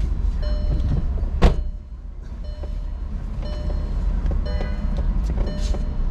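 Steady low rumble of a car's interior, with one sharp knock about one and a half seconds in, after which the rumble drops quieter for a moment before building back.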